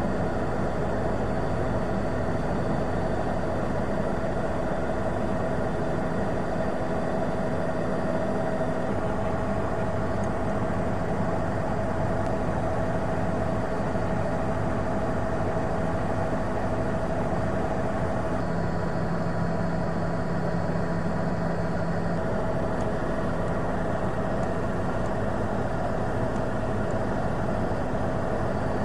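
Helicopter engine and rotor noise: a steady drone with a constant mid-pitched whine, unchanging throughout.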